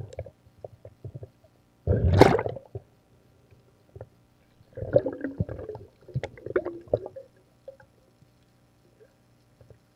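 Muffled water sounds around a submerged camera: a loud rushing burst about two seconds in, then bubbling and gurgling around five seconds and again between six and seven seconds, with scattered small clicks.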